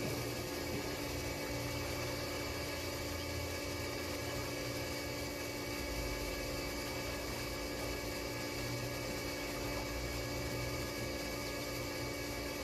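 Above-ground pool's filter pump running: a steady motor hum with several constant tones, its low drone growing stronger about six seconds in.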